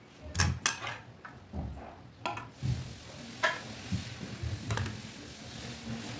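A handful of sharp clinks and taps from a metal spoon and a china plate as pancakes are stacked and syrup is spooned over them, with soft rustling in between.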